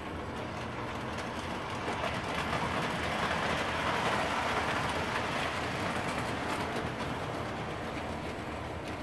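Lionel O-gauge missile launch train rolling past on three-rail track, its wheels and motor growing louder to a peak about four seconds in, then fading as it moves away.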